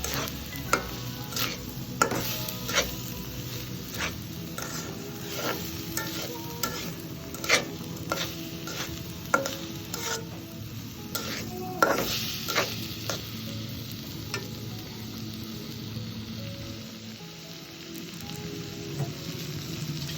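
Food frying and sizzling in a pan while being stirred, with a utensil knocking and scraping against the pan one or two times a second; the knocks thin out after about thirteen seconds.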